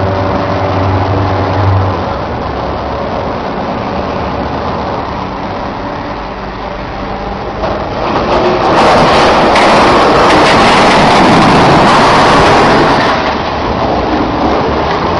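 A boat's engine running under steady noise. About eight seconds in, a louder, rough rushing noise takes over for about five seconds, then falls away.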